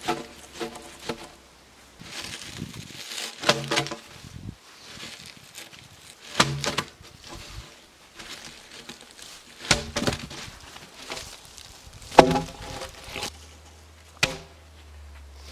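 Peeled logs knocking against each other and against the log below as they are rolled and shifted into place, a sharp wooden knock every few seconds, each ringing briefly.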